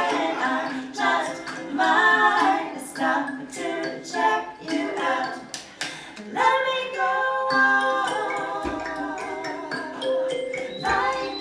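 Voices singing a pop song over plucked kalimbas (thumb pianos), with short sung phrases giving way to longer held notes about six and a half seconds in.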